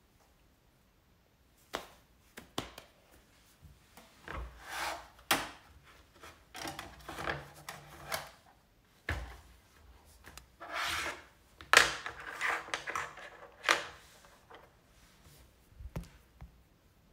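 Objects being handled out of view: irregular rubbing and scraping with scattered knocks, in two busier spells, a quarter of the way in and again past the middle.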